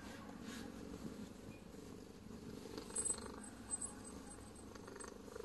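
Quiet room with a faint, steady low hum, and a few tiny high clicks about three seconds in.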